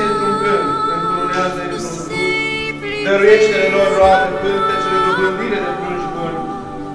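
Orthodox liturgical chanting: sung voices hold long notes and slide from one pitch to the next, with a short break about three seconds in.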